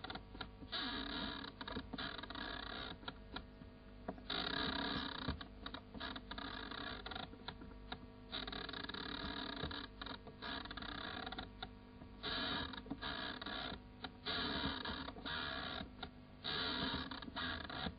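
Scratchy, mechanical-sounding noise that cuts in and out abruptly at irregular intervals, over a steady low hum.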